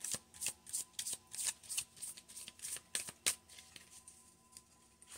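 Tarot cards being shuffled by hand: a quick run of soft card snaps, several a second, thinning out and dying away near the end.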